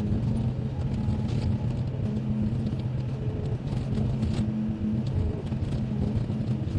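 Diesel engine of a Volvo EC55C mini excavator running steadily, with a low hum that holds throughout.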